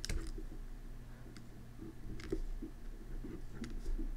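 A few faint, scattered clicks and taps of a stylus on a drawing tablet while writing, over a low steady hum.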